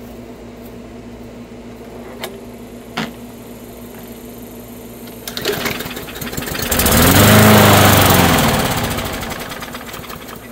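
Craftsman push mower engine pull-started after two sharp clicks: the recoil starter rattles, the engine catches and runs up, then slows and dies within a few seconds. This is the stalling fault that the owner puts down to the mower either not getting gas properly or sucking air somewhere.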